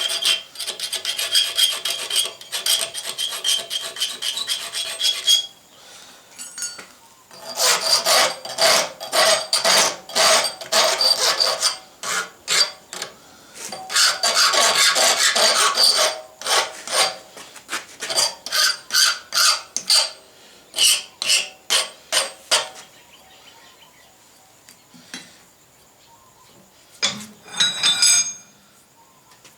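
Hand file rasping on a small forged steel arrowhead pendant to clean up its edges. It starts as fast continuous strokes, stops and restarts in runs, then slows to separate single strokes in the second half.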